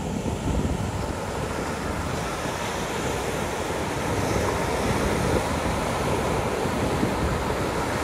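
Ocean surf: small waves breaking and foam washing up a sandy beach in a steady rushing wash, swelling slightly in the first second.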